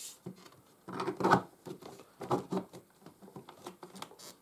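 Hard plastic vacuum-cleaner attachments being handled and pushed onto the extension wand and crevice tool: a few short clatters and knocks, the loudest about a second in.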